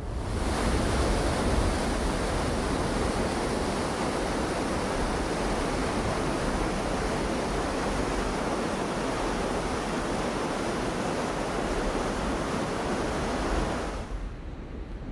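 Steady rush of a mountain stream and waterfall pouring over rocks. It cuts off abruptly near the end, leaving fainter wind noise.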